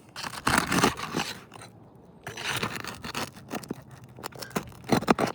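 Asphalt shingles being pried up and lifted, scraping and crackling in two bursts, with a few sharp knocks near the end.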